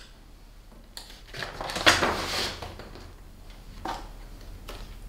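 Paper stick puppets being handled below a cardboard counter: a few light knocks and a longer rustle in the middle as one puppet is put down and another picked up.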